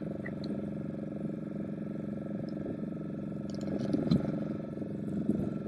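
A boat's engine running steadily, a constant droning hum.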